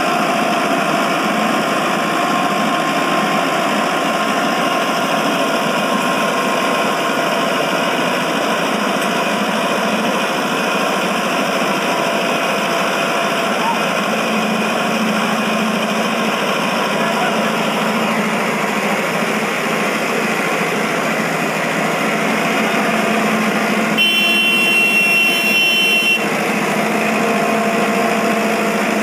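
Mahindra Arjun tractor's diesel engine running steadily as it hauls a string of rail wagons along the track on rail wheels, with people's voices over it. Near the end a high-pitched tone sounds for about two seconds.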